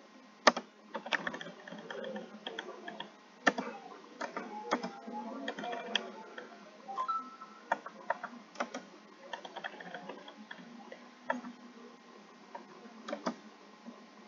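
Computer keyboard keystrokes, single keys pressed at irregular intervals in a scattered run of short clicks, as separate lines of text are joined into one paragraph.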